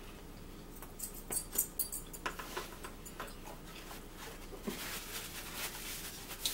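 Forks clicking and scraping against plastic food trays, then a paper napkin rustling as hands are wiped with it.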